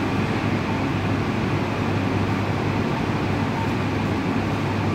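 Steady low machine hum with a rushing noise over it.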